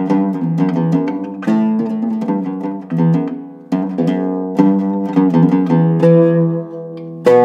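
Iraqi-style Zeryab oud with a cedar soundboard and walnut back, played solo with a plectrum. It plays a melodic phrase of plucked notes that are left to ring, with a few quick repeated strokes about a second in.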